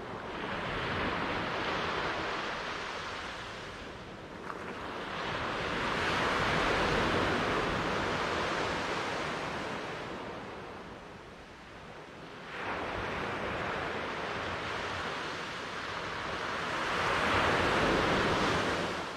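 Ocean surf: waves breaking and washing up the shore in a rushing hiss that swells and ebbs in three long surges, the last and loudest near the end.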